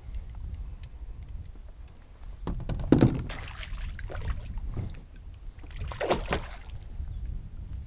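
A largemouth bass being landed beside a kayak: a steady low rumble, a few light clicks, then two louder bursts of knocking and splashing about three and six seconds in.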